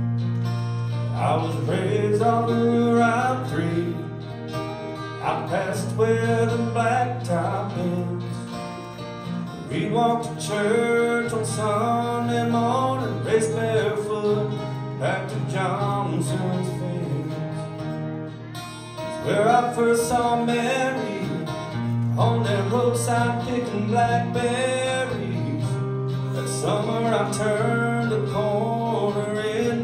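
Two amplified acoustic guitars playing a country tune together.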